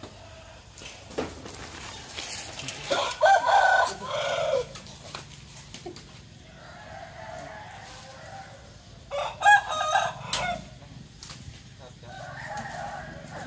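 Rooster crowing twice, two loud cock-a-doodle-doos about six seconds apart, with fainter calls in between and near the end.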